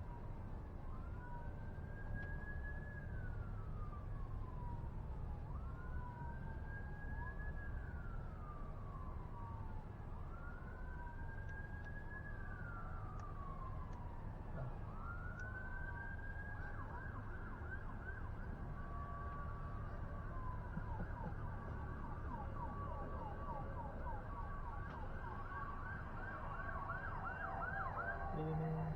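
Emergency vehicle siren in a slow wail, its pitch rising and falling about every four seconds, switching a little past halfway to a fast yelp. A steady low rumble runs underneath.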